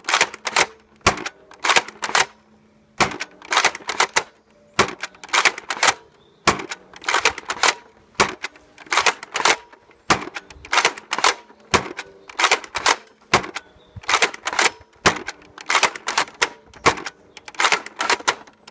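Nerf Longshot spring-powered bolt-action blaster being fired over and over: sharp plastic clacks of the bolt pulled back and pushed forward, then the shot, in small clusters about every second.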